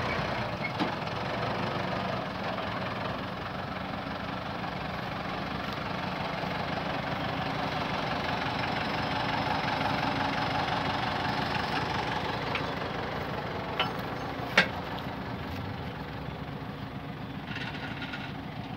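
Kubota farm tractor diesel engine idling steadily, with two sharp knocks close together a little past the middle.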